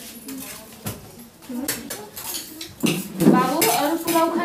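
Metal spoons clinking and scraping on stainless steel plates as people eat, with voices talking over it in the second half.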